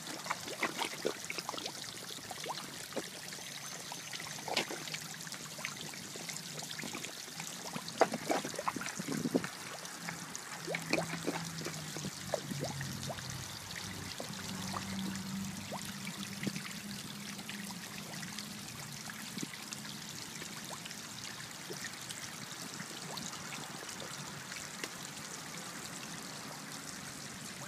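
Pond water trickling steadily, with scattered small splashes and sucking pops as koi and catfish take floating food pellets at the surface.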